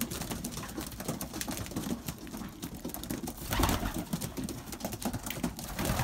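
A flock of young racing pigeons cooing, with many quick clicks of beaks pecking at grain held in a hand. There is a louder rustle about three and a half seconds in.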